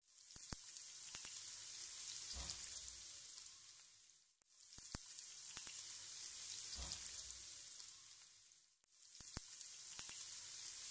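Boiled meat frying in oil with onions and garlic-ginger paste, sizzling steadily as it is stirred in the pot. The sizzle dips away twice and comes back.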